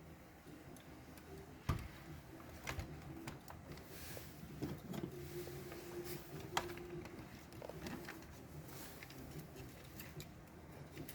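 Scattered light clicks and taps of small tools and plastic casing parts being handled while a robot's torso is taken apart, over a faint hum that comes and goes.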